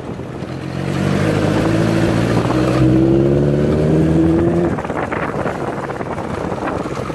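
Honda CBX 750's inline four-cylinder engine through its 4-into-1 exhaust, accelerating hard: its note rises steadily for about four seconds, then falls away as the throttle comes off and the engine runs on more roughly.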